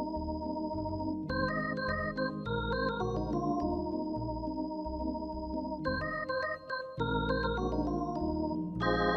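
Organ music: runs of short stepping notes over a bass line, broken by a couple of held chords.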